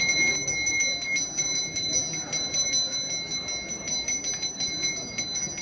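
Temple puja bell rung rapidly and without a break during the abhishekam: a fast, even run of metallic strokes under a steady high ringing. The lowest ringing tone drops out about a second in.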